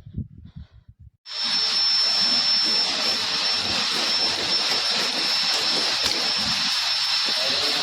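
A machine starts abruptly about a second in and runs with a loud, steady rushing hiss and a high-pitched whine.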